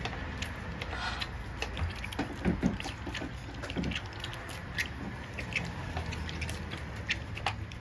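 Three young Dutch Shepherd puppies lapping milk from a foil pan: many small, irregular wet clicks and slurps.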